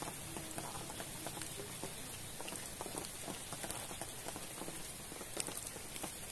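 Rain falling steadily onto the surface of a pond: an even hiss of drops hitting the water, with many small ticks throughout.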